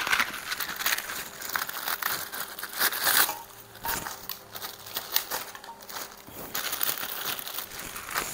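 Clear plastic bag crinkling as crackers (kerupuk) inside are crushed by hand and shaken out, with the crisp crackle of the crackers breaking, in irregular bursts.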